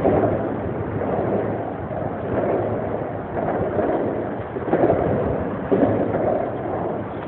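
Wind buffeting a phone's microphone, a rushing noise that swells and eases in uneven gusts.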